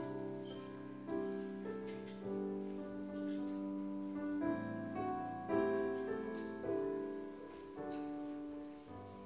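Slow piano music with held chords that change every second or so.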